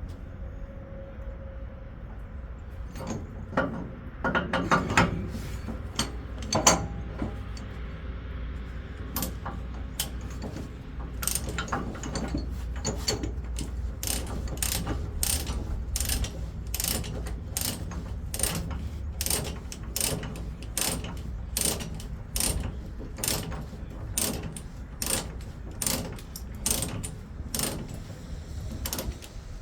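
Ratchet chain binder being cranked to tighten a load chain: an even series of sharp ratchet clicks, about two a second, that starts about nine seconds in. Before it there are a few clanks of chain and hardware.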